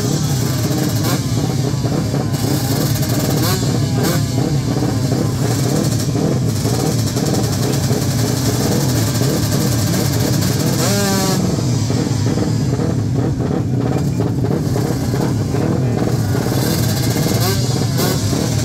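Racing motorcycle engines running loudly on the start line and being revved, the pitch sweeping up and down; a sharp rising rev comes about eleven seconds in.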